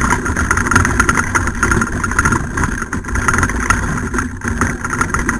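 Wheeled dog-sled training rig (kart) rattling and rumbling over rough, leaf-covered dirt as a dog team pulls it at speed, a steady clatter with many small knocks.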